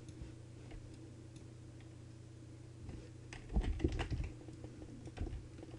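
Computer keyboard keystrokes and clicks, a few faint ones at first, then a quick cluster of them about three and a half seconds in, over a steady low hum.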